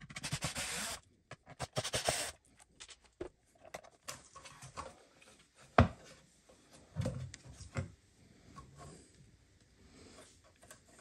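Handling sounds as a woofer is worked out of an onn. Large Bluetooth party speaker's cabinet: scraping and rubbing in the first two seconds, scattered clicks, one sharp knock about six seconds in, then a few dull thumps.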